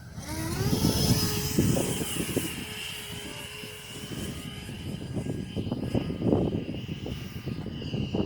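Electric ducted fans of a Freewing F/A-18 RC jet throttling up with a rising whine, then holding a steady high whine. Wind buffets the microphone with gusty rumbling.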